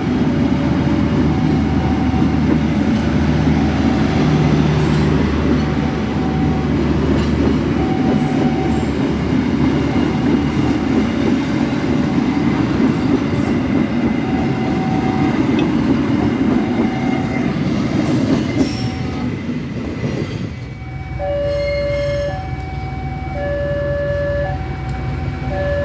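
Passenger coaches rolling past on the track: a steady loud rumble of wheels on rail with high squeals. About 21 s in this gives way to a level-crossing warning alarm beeping in a regular alternating two-note pattern.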